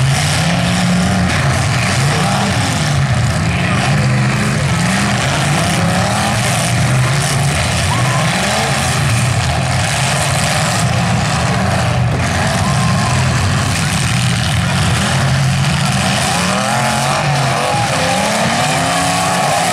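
Several full-size demolition derby cars' engines revving at once, pitch rising and falling again and again as they accelerate and back up in the dirt arena.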